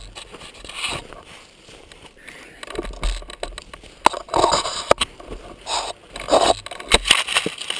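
Handling noise from a helmet-mounted camera: fabric and plastic riding gear scraping and rubbing against it in irregular bursts, with a few sharp knocks, as the helmet is moved about and set down.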